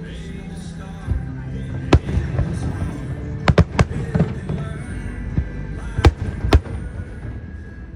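Aerial fireworks bursting: about six sharp bangs, with a quick run of three near the middle and two more later, over background music.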